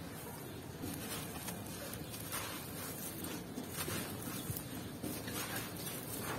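Hands digging into and scooping up gritty sand and red dirt full of small pebbles. It gives a steady, grainy crunching and rustling, with repeated short crunches, as the dirt crumbles and trickles back down between the fingers.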